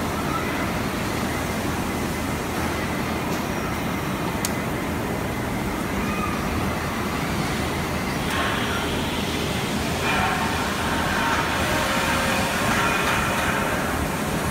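Steady running noise of a robotic palletizing line: a NACHI robot arm and roller and chain pallet conveyors at work. A single sharp click comes about four and a half seconds in, and a brighter, hissing layer of machine noise joins from about eight seconds in.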